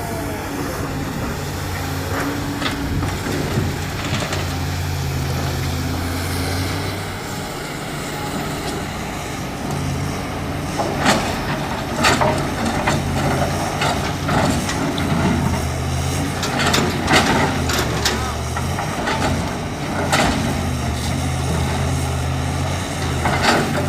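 Diesel engine of a JCB 3DX backhoe loader running and rising and falling with load. A string of sharp clanks and knocks runs through the second half.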